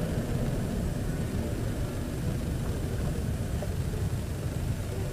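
Steady low rumble of a moving car: engine and road noise with no distinct impact.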